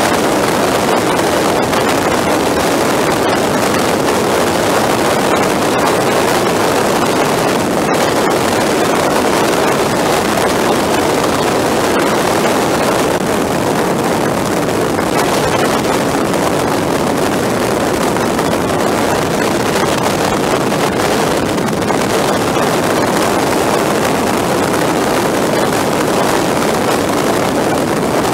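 Steady rush of wind buffeting the microphone, mixed with engine and road noise, from a motorcycle at highway speed.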